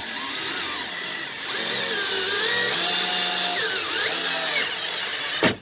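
DeWalt DCF682 8V MAX gyroscopic cordless screwdriver driving a screw into wood at slow, varying speed, its motor whine rising and falling in pitch. It gets louder about a second and a half in and stops suddenly near the end.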